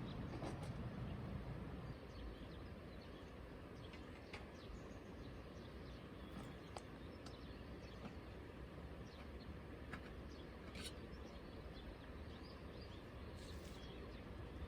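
Faint outdoor ambience: scattered short bird chirps over a steady low background hum, with a low rumble easing off during the first two seconds.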